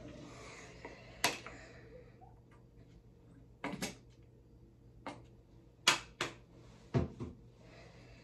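Handling of a plastic conditioner bottle: about eight sharp clicks and knocks at uneven intervals, loudest about six and seven seconds in, over a faint steady low hum.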